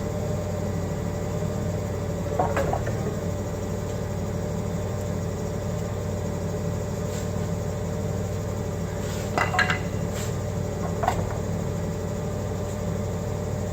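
Forklift engine idling steadily, with a few short metallic clanks and knocks about two and a half, nine and a half and eleven seconds in as the fork hardware and a block are shifted by hand.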